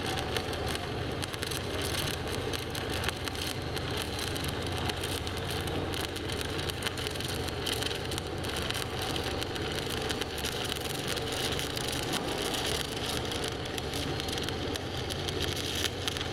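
Stick (SMAW) welding arc burning on aluminium plate with an aluminium electrode: a steady, continuous crackling sizzle as a flat fillet pass is run, over a low steady hum.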